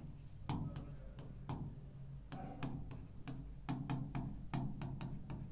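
Stylus tapping and clicking against a touchscreen whiteboard while writing: an irregular series of light ticks over a low steady hum.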